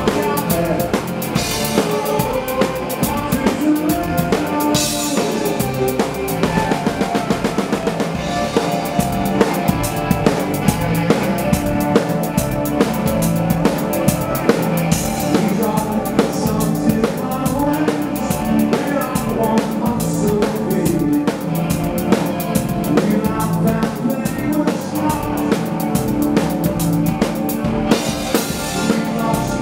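Live rock band playing, with the drum kit out front: a driving beat of kick and snare under pitched guitar and keyboard parts, and cymbal crashes about five seconds in and again near the end.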